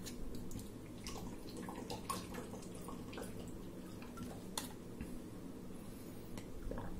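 Faint handling of a plastic drinking bottle as someone opens it and drinks: scattered small clicks and sips over a steady low hum.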